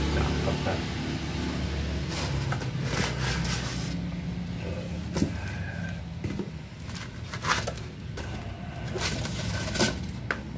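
Handling noise from a carbon-fibre motorcycle silencer being lifted out of its foam-packed cardboard box: scattered sharp taps and clicks of cardboard and foam, about half a dozen, over a steady low hum.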